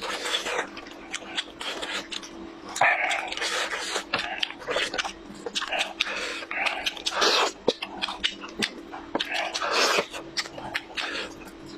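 Close-miked eating sounds: wet chewing, lip-smacking and sucking on saucy meat, with sticky clicks as greasy fingers pull the roast apart. A faint steady hum lies underneath.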